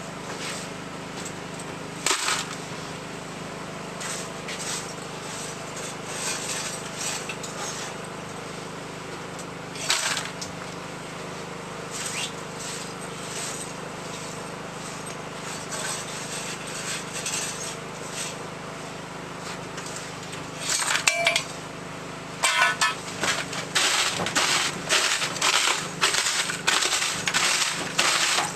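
Scattered knocks and clatter over a steady low hum, the knocks coming thick and fast near the end.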